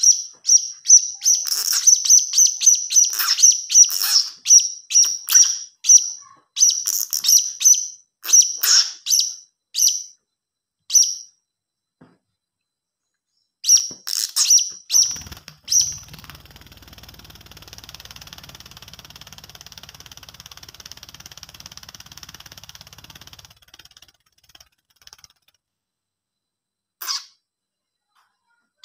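Blue-crowned hanging parrot (serindit) chick calling: short, high, thin chirps in fast runs that thin out after about ten seconds. A faint steady hiss follows, then a single chirp near the end.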